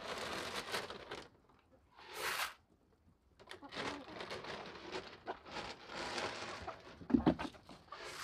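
Rustling and crunching footsteps among hens in a straw-floored chicken run, in irregular bursts, with a single knock about seven seconds in. Chickens cluck now and then.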